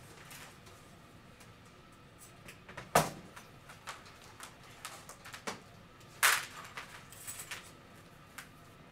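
Handling noises from a metal-framed stained-glass billiard lamp shade and its parts: a sharp knock about three seconds in as the shade is laid down on the floor, a short scraping rattle about six seconds in, and small clicks between.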